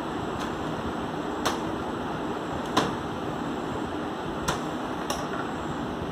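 A toddler's hand tapping and patting a mirror: five sharp taps at uneven intervals, the loudest a little before the middle, over a steady background hiss.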